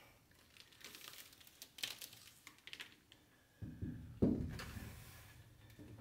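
Faint crackling handling noises, then two dull knocks about half a second apart, the second louder and dying away over about a second, as a large painted canvas is set down flat on a covered work table.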